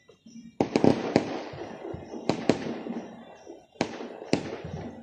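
Fireworks going off: about seven sharp bangs in three clusters, about a second in, at about two and a half seconds and near the end, each trailing off in a fading rumble.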